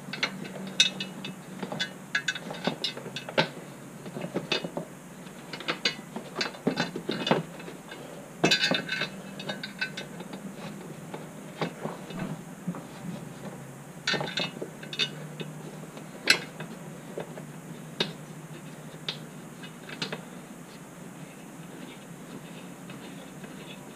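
Irregular metallic clicks and clinks of a steel plow mount, U-bolts and nuts being knocked and fitted by hand against the ATV frame and skid plate. The clicks come thick and fast for the first half, bunch again in the middle, then thin out, over a low steady hum.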